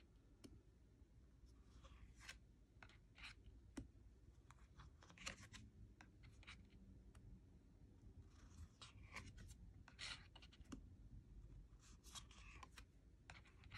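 Faint, irregular soft scrapes and light taps of thick cardstock oracle cards being slid off a deck one at a time and laid onto a pile.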